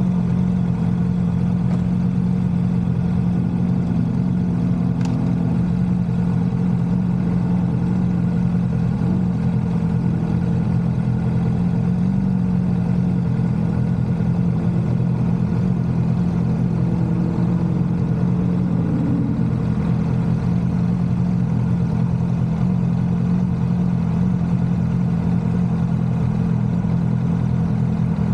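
Kawasaki Vulcan S 650's parallel-twin engine running at a steady, unchanging pitch.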